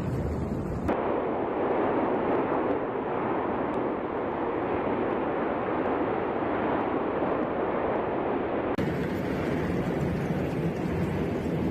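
Erupting Cumbre Vieja volcano on La Palma giving off a steady, dense rushing roar. Edits about a second in and near the end switch to a rougher, wind-buffeted outdoor recording.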